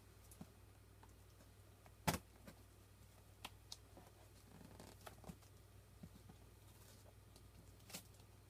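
Cardboard shipping box being handled and opened: faint scattered rustles and small clicks, with a sharper click about two seconds in and another near the end.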